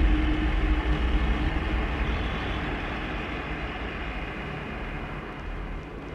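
Industrial ambient drone from an electronic jam: a dense, noisy rumble with hiss above it, slowly fading down. A louder low drone cuts back in abruptly at the very end.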